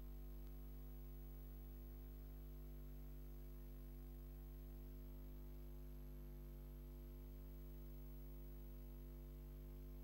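Faint, steady electrical mains hum with a buzz of overtones, unchanging, with no other sound over it.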